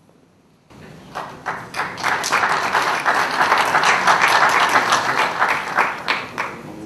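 Audience applauding: many hands clapping that start about a second in, swell to a full round and die away near the end.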